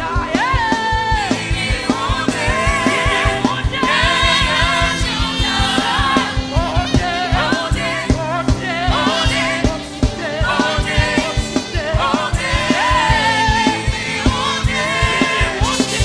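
Gospel worship music: singers over a band with a fast, steady drum beat.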